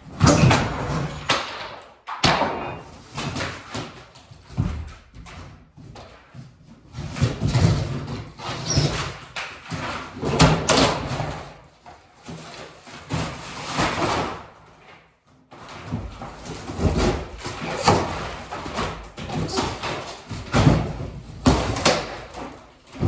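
Old wall paneling being pried and torn off a plywood wall: a run of irregular cracks, scrapes and thuds, with short lulls between pulls.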